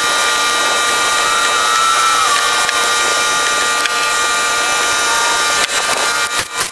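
Handheld power tool whirring steadily with a slightly wavering pitch, then running in short on-off bursts near the end.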